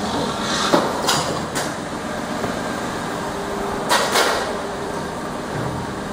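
Steady low background hum with a handful of short knocks and rustles, the loudest two close together about four seconds in.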